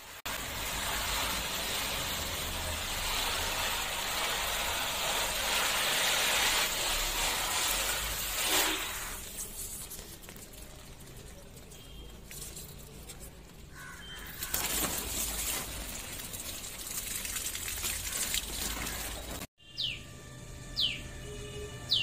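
A steady hiss of water running into shallow rooftop bird baths for the first nine seconds or so, then quieter noise. After a sudden cut near the end, a bird gives several short, sharply falling whistles.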